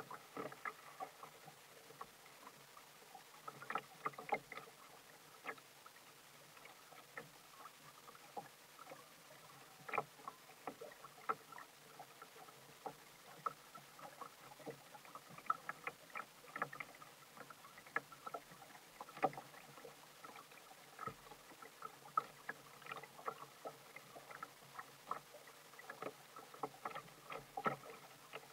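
Small waves lapping and slapping irregularly against a plastic kayak hull, making quick, uneven little splashes and taps.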